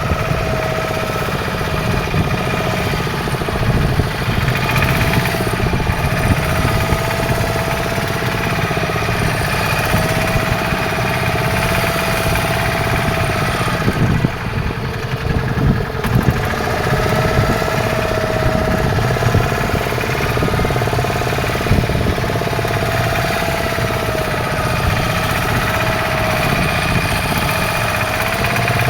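Fishing boat's engine running steadily at an even pace, with a fast regular pulse and a higher whine that slowly wavers in pitch.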